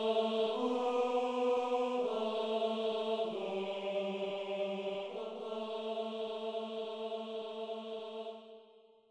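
Slow music of long held notes, the chord shifting every second or two, fading out near the end.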